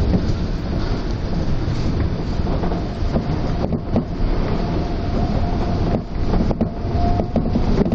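Shōnan Monorail suspended monorail car under way, heard from inside the cabin: a steady running rumble. A faint steady whine joins about halfway through, with a few light knocks near the end.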